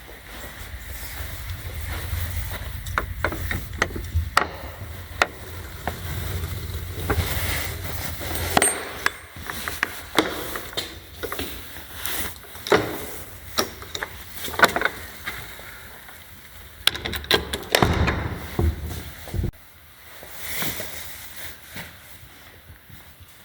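Irregular sharp knocks and clicks, with a low rumble through the first third and again briefly about three-quarters of the way in.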